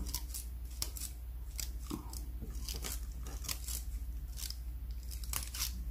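Sharp little snaps and clicks of a twisted thread catching and pulling out facial hairs during threading, about a dozen at an irregular pace.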